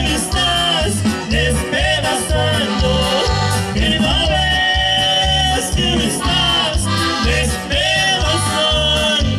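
Live regional Mexican band playing: a held, wavering lead melody over a steady, pulsing bass beat.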